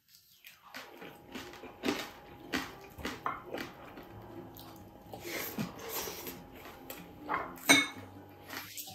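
Close-miked mukbang eating sounds: a man chewing and smacking his lips while eating rice and food with his fingers, with irregular small clicks and taps. A sharp click near the end is the loudest sound.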